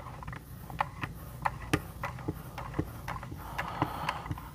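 Irregular light clicks and taps of the plastic parts of a Work Sharp Precision Adjust guided knife sharpener being handled as its rod-mounted abrasive is brought to the clamped blade, with faint scraping in between.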